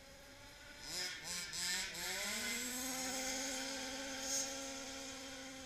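Small two-stroke petrol engine of an HPI Baja RC car revving in quick blips, then held at a steady high-pitched buzz that slowly fades.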